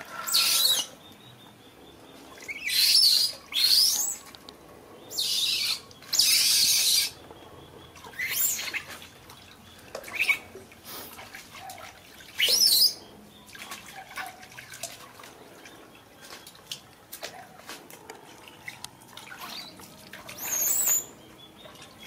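A baby monkey's short, high-pitched squeals and shrieks, about nine cries spread through, several rising sharply in pitch, while being bathed; water splashes in a plastic tub between them.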